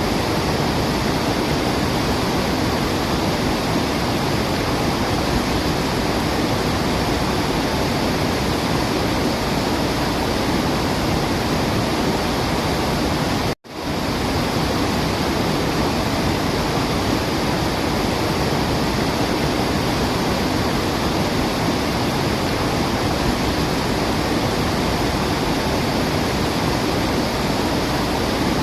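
Waterfall rushing steadily, an even wash of falling water with no birdsong standing out. It drops out to silence for a split second about halfway through, then resumes.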